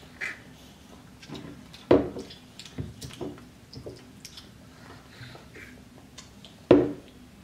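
Children drinking from cups and eating at a table: small sips and clicks, and two loud thumps, one about two seconds in and one near the end.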